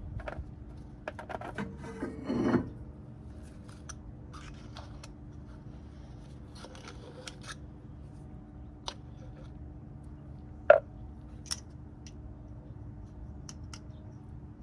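Hands wiping and greasing a brake caliper slide pin: faint rubbing with scattered small metallic clicks, and one sharp knock about eleven seconds in, over a steady low hum.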